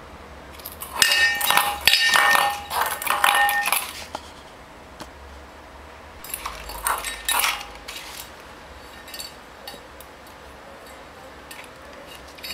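Cat pawing an empty stainless-steel bowl across a tiled floor, the bowl clattering and ringing in quick clanks. A long spell comes about a second in and a shorter one a few seconds later.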